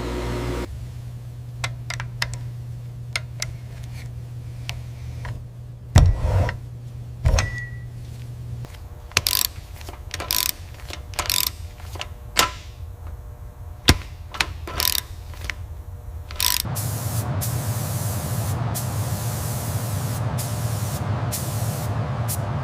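A series of separate sharp clicks and knocks, some with a short metallic ring, over a low hum. About 17 seconds in, a machine starts up and runs steadily and loudly.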